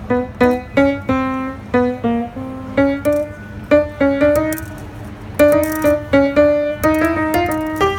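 A keyboard playing a simple melody one note at a time, each note struck and fading, with a short pause a little past halfway before the notes go on.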